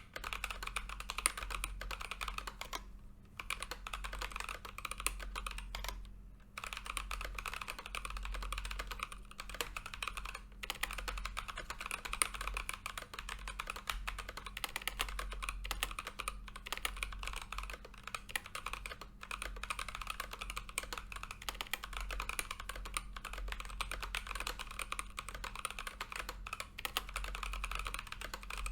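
Fast, continuous typing on a Keychron K8 mechanical keyboard fitted with Gazzew Boba U4T tactile switches, a dense run of keystroke clacks with two short pauses early on. A low steady hum sits underneath.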